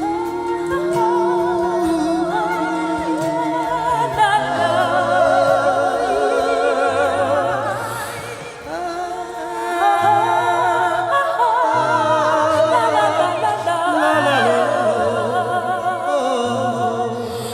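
Background music with a sung vocal line held in long, wavering notes over a steady bass.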